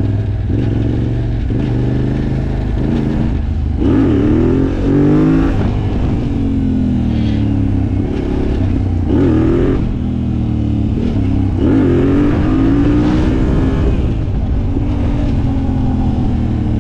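A Yamaha Raptor quad with a swapped-in Yamaha MT-07 689 cc parallel-twin engine accelerating hard through the gears. The engine note rises and then drops again several times as each gear is pulled and shifted.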